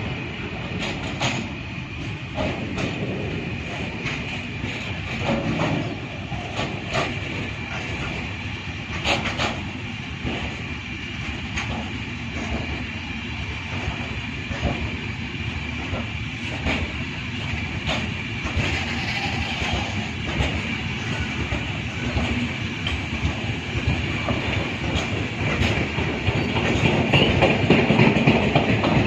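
Train running on the rails, its wheels clicking over track joints, with a steady high whine over a low rumble, getting louder near the end.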